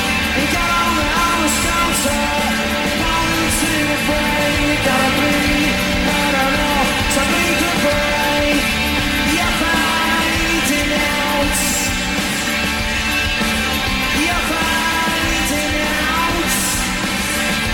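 Live rock band in full flow: electric guitar and drums, with a male lead vocalist singing at the top of his voice and cymbal crashes now and then.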